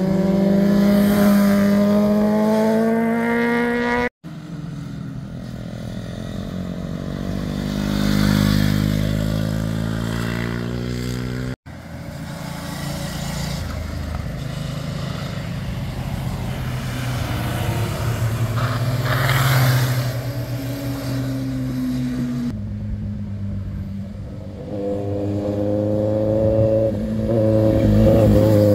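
Several motorcycles ridden one after another through a hairpin bend. Each engine note rises and falls with the throttle as the bike sweeps past. The sound cuts abruptly between bikes about four and twelve seconds in.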